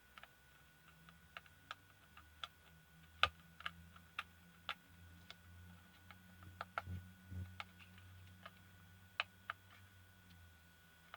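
Faint, irregular light clicks and taps of a small hand tool probing the plastic case of a pico projector, about one or two a second, over a faint low hum through the middle.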